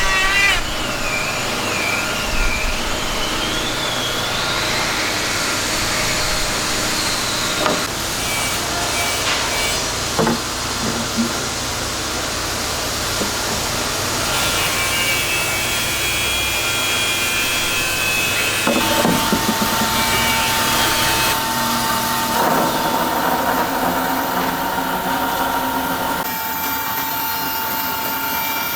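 Wood being sawn with power tools: steady cutting noise throughout, with a wavering whine in the first several seconds and a steady whine from about two-thirds of the way in.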